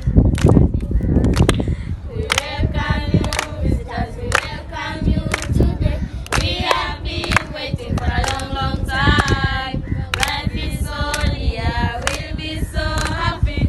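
A group of voices singing together, with sharp claps cutting through the song.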